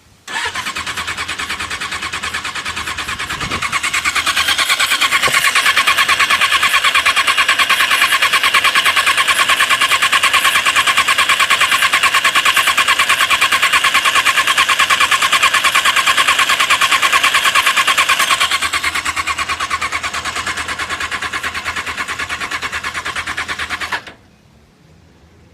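1994 Suzuki Katana motorcycle's electric starter cranking the engine with a rapid, even pulsing, louder for most of the middle. The engine never fires, then the cranking stops suddenly: a no-start despite new plugs, wires, coils and battery and a cleaned, adjusted carburettor.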